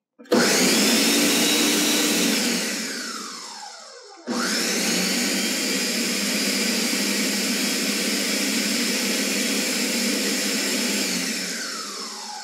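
Countertop blender pureeing tomato soup in two runs: the motor starts, runs about two seconds and winds down with falling pitch, then starts again about four seconds in, runs steadily and winds down near the end.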